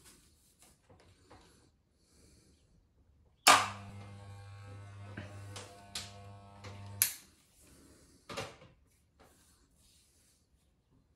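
Electric hair clippers switched on with a loud click, buzzing steadily for about three and a half seconds with a few small knocks, then switched off with another click near the middle. A brief scraping noise follows about a second later.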